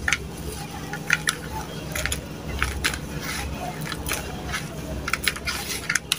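Hands squeezing and crumbling damp, gritty sand-cement mix in a plastic bucket, with irregular crunchy crackles as the grains grind and clumps break apart.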